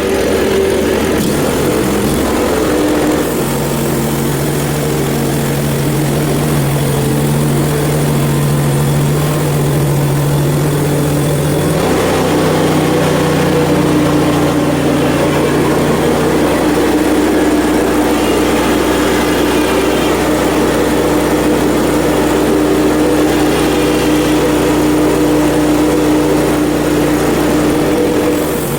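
Hud-son portable bandsaw mill running steadily, its engine driving the band blade through a red oak log being cut into 2-inch slabs. The engine's note shifts about twelve seconds in.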